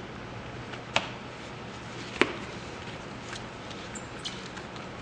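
Two sharp clicks about a second apart, followed by a few fainter ticks, from an iPad being handled in a case.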